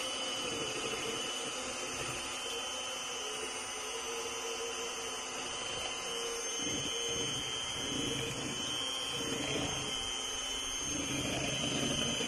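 Electric hand mixer running with a steady whine, its beaters whipping egg whites into meringue.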